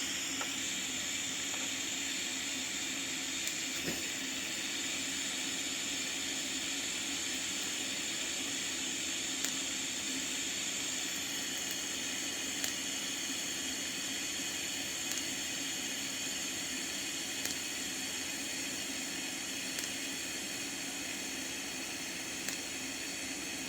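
TIG welding arc burning steadily at about 45 amps: an even hiss with a faint hum, broken by a few faint ticks.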